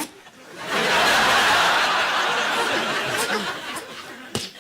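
Studio audience laughing: a burst of laughter swells up under a second in and slowly dies away, with a short click near the end.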